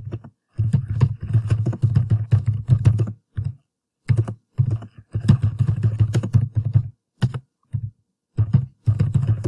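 Typing on a computer keyboard: quick runs of keystrokes with a dull thud to each, pausing briefly twice.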